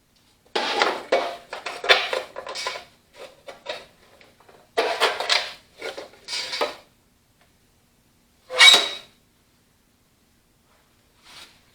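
Sheet-metal scraping and rattling from hand-tool work taking a steel toolbox off a tractor fender, in two spells of a few seconds, then a single ringing metal clank about nine seconds in.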